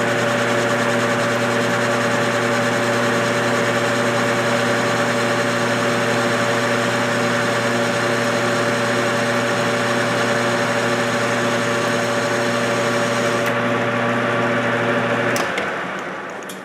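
Metal lathe running at a steady speed with a constant motor hum and machining noise during a turning pass on aluminum with a high-speed steel tool bit. Near the end the hum stops and the lathe winds down.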